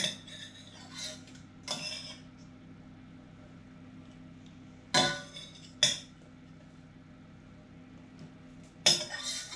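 A metal spoon and kitchen knife knocking and scraping on a wooden chopping board and a steel saucepan as cooked pear pieces are handled. A handful of short, separate clinks and knocks are heard, the sharpest about five and six seconds in and near the end, over a faint steady hum.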